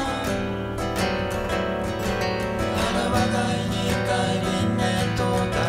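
Two acoustic guitars playing a song together, with notes plucked and struck in a steady rhythm.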